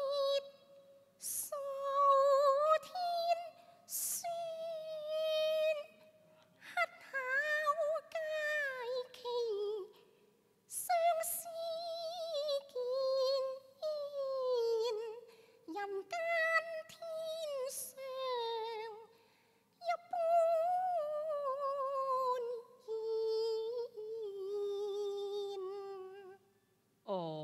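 A female Cantonese opera singer holding long, wavering high notes with vibrato, drawing out the syllables of a sung line in slow melismas, with short breaks between phrases.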